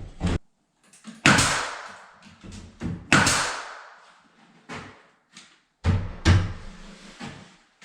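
Interior door being handled and fitted into its frame: three loud bangs a couple of seconds apart, with smaller knocks between, each echoing briefly.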